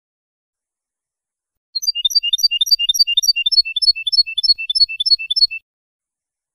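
Song of a finch from a Malagueño-style tutor recording for training goldfinches and goldfinch × canary hybrids: a fast run of high chirping notes, repeated evenly about five a second. It starts about two seconds in and lasts just under four seconds, stopping abruptly.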